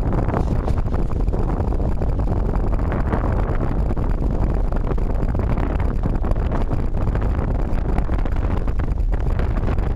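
Strong Santa Ana wind gusting through palm trees and buffeting the microphone: a loud, steady low rumble with a rushing hiss above it.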